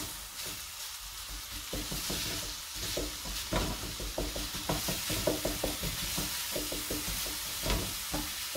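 Turkey mince sizzling in a little oil in a frying pan, with a wooden spatula scraping and knocking against the pan as it breaks up and stirs the browning mince. From about two seconds in the spatula strokes come quick and close together.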